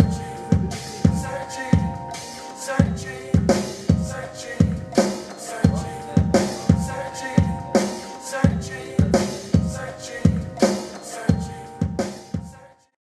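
Casio XW-G1 groove synthesizer playing a drum-machine beat, a steady kick about twice a second with snare hits, under held synth chords. It all cuts off suddenly near the end.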